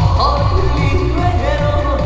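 A male singer singing live into a microphone over an upbeat backing track with a steady, heavy bass beat, the opening of a pop-trot medley.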